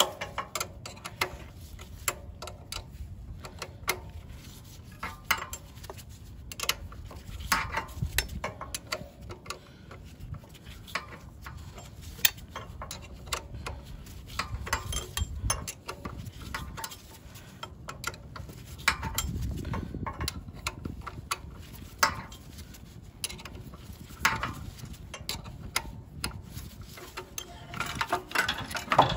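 Wrench working on the bolts of a small gas engine: irregular metal clicks, clinks and scrapes as the tool is fitted and turned, over a low rumble.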